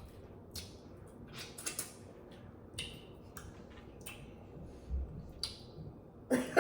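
Eating sounds close to the microphone: scattered soft clicks and wet smacks of chewing, about one or two a second, with a brief low thump about five seconds in.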